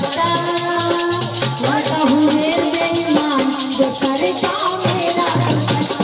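Live Indian folk song performance: a singer's voice over sustained harmonium-like tones, with a fast, even percussion beat running underneath.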